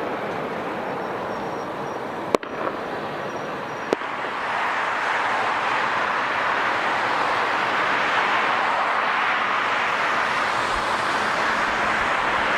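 Jet airliner engine noise, a steady rushing sound that grows louder about four seconds in. Two sharp clicks come a second and a half apart, shortly before the rise.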